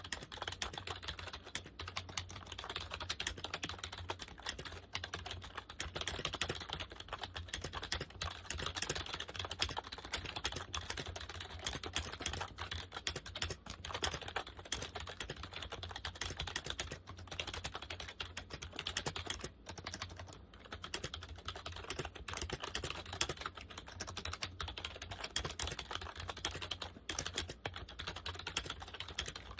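Continuous typing on a Compaq KB-3923 rubber dome keyboard: quick, dense keystrokes with short pauses now and then, over a steady low hum.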